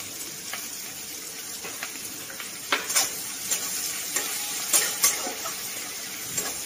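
Chopped onion sizzling in hot oil and ghee in a kadai, with a steady hiss. From about three seconds in, a spatula stirring it knocks and scrapes against the pan a few times.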